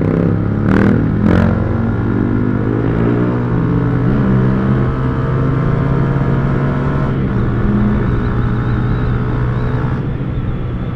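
Motorcycle engine and exhaust running loud and steady while riding, the exhaust note holding at a fairly constant speed. Two sharp cracks stand out about a second in.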